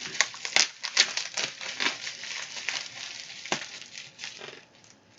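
Plastic packaging crinkling and crackling as a sealed package is handled and opened by hand, dying down near the end.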